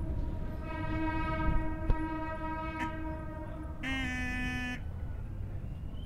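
A horn sounding one long steady blast of about three seconds, followed straight away by a shorter blast at a lower pitch.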